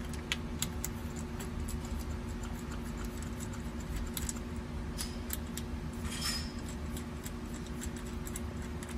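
Small irregular metal clicks and clinks of a socket and steel bolts being unscrewed by hand from the crankcase top of a CPS TRS21 recovery pump, with a brief scrape about six seconds in, over a steady low hum.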